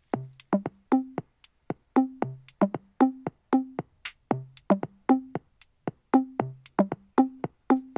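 Electronic drum beat with no melody: a low kick about every two seconds, with quicker, lighter pitched knocks and ticks between, in a steady rhythm.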